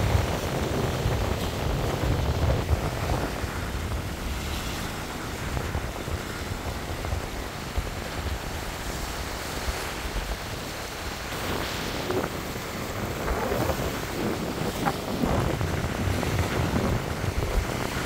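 Wind buffeting the microphone over small sea waves washing against rocks and sand, the low wind rumble heaviest in the first few seconds.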